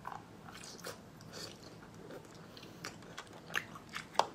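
Close-up mouth sounds of a person chewing and biting spicy seafood: scattered wet smacks and soft crunches, with a few sharper clicks near the end.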